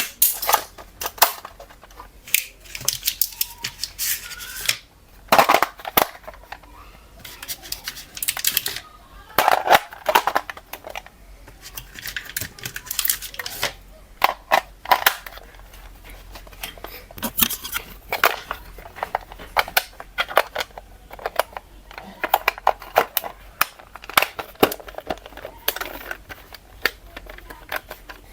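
Packaging being handled and opened: irregular crinkling, crackling and tearing with sharp clicks.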